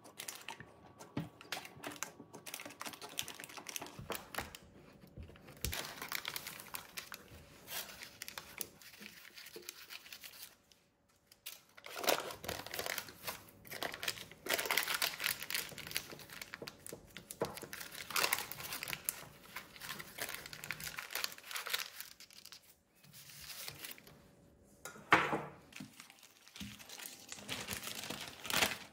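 Baking parchment paper crinkling and rustling in irregular bursts as gloved hands fold it over, with clear plastic film rustling near the end.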